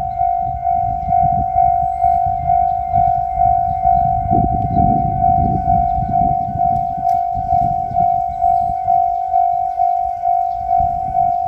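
Japanese railway level-crossing alarm ringing its electronic 'kan-kan' bell: one clear tone struck evenly about twice a second. A low rumble swells and fades under it around the middle.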